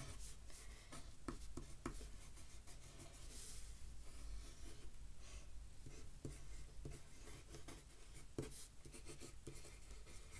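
Pencil scratching on paper as a word is written by hand, in faint, irregular strokes.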